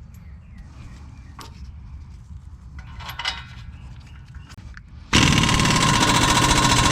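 Impact wrench hammering as it runs down and tightens a brake caliper bolt: loud and rapid, starting suddenly about five seconds in and lasting nearly two seconds. It follows a few seconds of small clicks and knocks of parts being handled.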